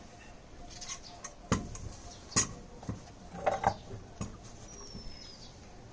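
A few scattered sharp taps and knocks of kitchen utensils being handled while a mango and green chillies are readied for cutting, with a short high falling chirp near the end.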